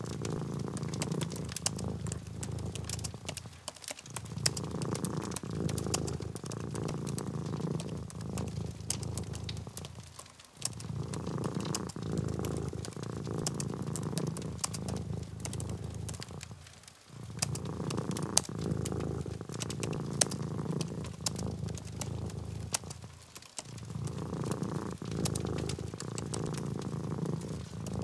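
Domestic cat purring in a steady low rumble, broken by brief pauses about every six and a half seconds. Over it runs a light patter of quick clicks from typing on a flat computer keyboard.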